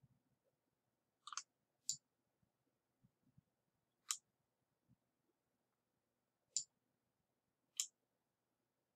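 Sharp computer mouse button clicks, a few seconds apart: a quick cluster about a second and a half in, then single clicks. They are presses and releases while dragging and dropping items on screen.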